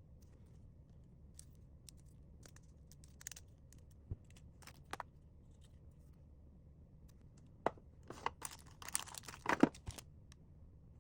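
Packaging being handled: scattered light taps and crinkles, then a couple of seconds of crinkling and tearing about eight seconds in.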